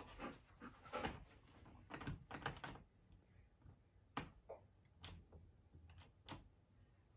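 Bernese mountain dog sniffing at the gap of a closed door: faint, short snuffles, a quick run of them in the first few seconds, then single sniffs now and then.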